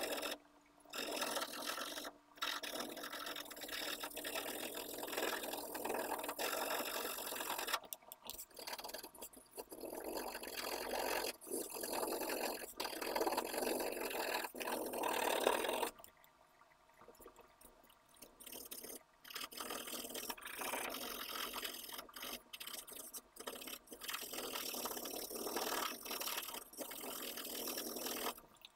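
Graphite pencil shading on paper: a steady scratchy rubbing in back-and-forth strokes. It breaks off briefly a few times and goes quiet for a few seconds about halfway through.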